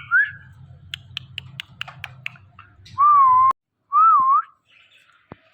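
Indian ringneck parrot giving a run of short, sharp clicks and chirps, then two loud whistled calls that waver up and down in pitch, about three and four seconds in.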